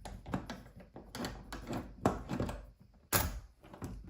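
Knocks, clicks and rustles as the parts of a fingerprint door lock are handled, lifted out of their packaging and set down, with a louder knock about three seconds in.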